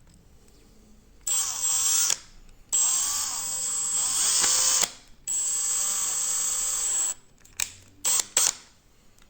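Electric screwdriver driving M3 screws into a 3D-printed part in three runs of one to two seconds each, its motor whine dipping in pitch as it meets resistance, followed by a few short clicks.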